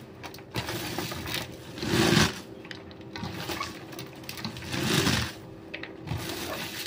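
Salted shredded cabbage with a little grated carrot, being tossed and pressed down by hand to make sauerkraut: a crisp rustling and crunching that swells about two seconds in and again about five seconds in, over a faint steady hum.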